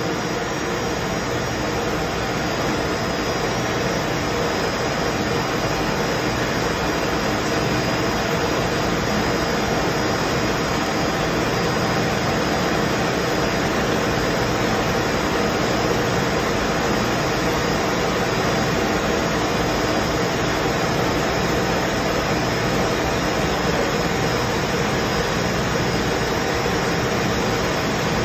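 Blown-film plastic bag machine running steadily: an even, unchanging machine noise with a few faint steady hums in it.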